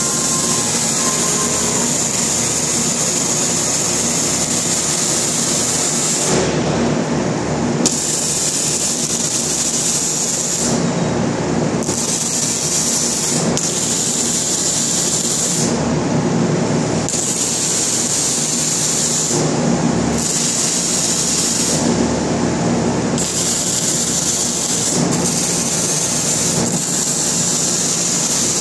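Arc welding on a steel frame: more than one welding arc crackling and hissing at once. From about six seconds in, the sound changes every second or two as individual welds start and stop, over steady shop noise.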